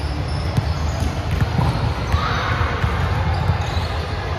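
A volleyball being hit and bouncing on a gym floor: scattered short thuds over a steady low rumble.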